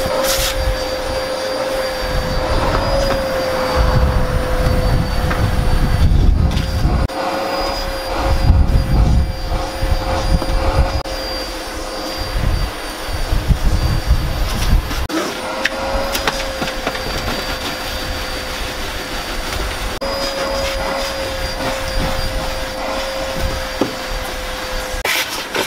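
Vacuum cleaner running with a steady, slightly wavering motor whine, with irregular knocks and rumbles as the nozzle is worked over surfaces.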